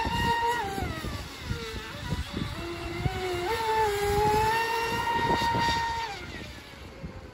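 32-inch Lizard deep-vee RC offshore boat running flat out across the water, its motor giving a high-pitched whine. The pitch drops just under a second in, climbs again about halfway through, and the whine fades near the end as the boat pulls away.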